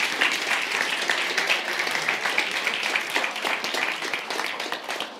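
Crowd applauding, a dense patter of many hands clapping that dies down toward the end.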